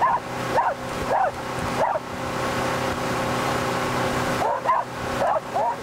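A dog barking in short, high yips: a run of about four, spaced a little over half a second apart, then another quick run of four near the end. Underneath runs the steady hum of the boat's motor and the rush of its wake.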